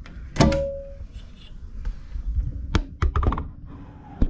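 Handling knocks and taps: one solid thunk with a short ringing tone about half a second in, then a few quick clicks and taps a little before the end.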